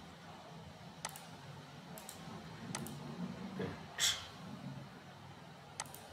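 Computer mouse clicking: about five single clicks spaced roughly a second apart, the loudest about four seconds in, over a faint low hum.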